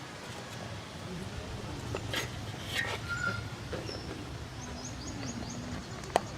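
Outdoor background with a steady low rumble and a few scattered knocks, and a quick run of short, high chirps a little over four and a half seconds in.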